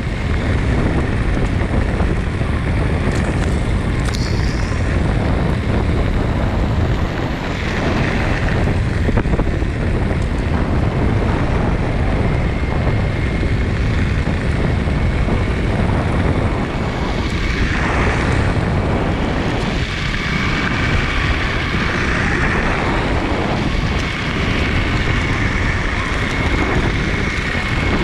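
MetroboardX electric skateboard rolling on its air-filled off-road tyres over a gravel trail: a steady rumble mixed with heavy wind noise on the microphone, and a faint steady high whine throughout.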